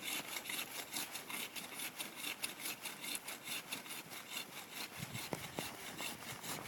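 Big hand saw cutting through a Christmas tree's trunk in quick, regular back-and-forth strokes, with a couple of soft knocks near the end.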